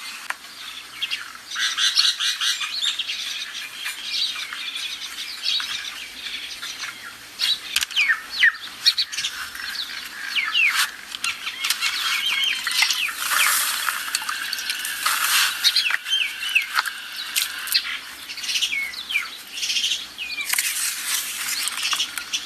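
A flock of small birds chirping and twittering, with many short calls overlapping.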